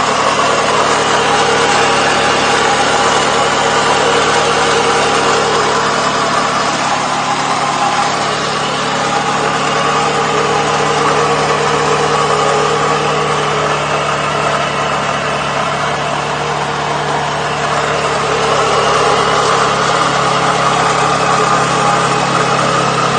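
2009 Toyota Camry engine with about 160,000 miles idling steadily, with a rumbling, rattling and slight wheezing. The owner doubts the belts and thinks it comes from the center of the engine block.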